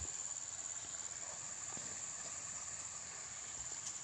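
Insects chirring in one steady high-pitched drone, with a faint click near the end.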